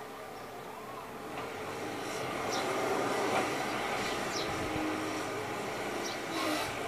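Heavy engine rumble at a distance, swelling over a couple of seconds and easing off again, with a few faint short high chirps now and then.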